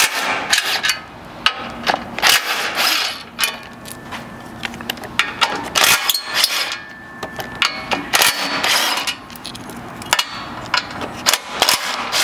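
Cordless ratchet with a 12 mm socket run in many short bursts, backing out bolts, with metal clinks and rattles between the bursts.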